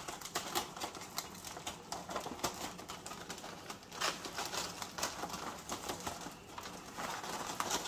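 Heavy-duty aluminium foil crinkling and rustling in irregular crackles as it is peeled back and unwrapped from a foil tray.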